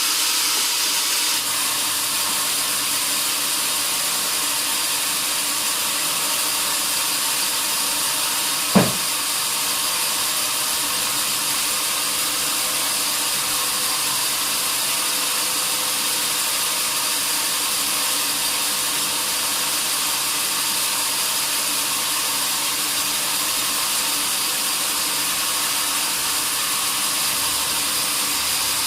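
A sawmill saw cutting a large log: a steady, high hiss with no change in pitch, broken once by a single sharp knock about nine seconds in.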